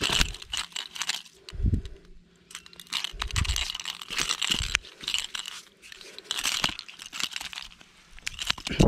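A landed arowana flopping and thrashing on wet sand, its body slapping and scraping the sand in irregular bursts, with a few dull thuds.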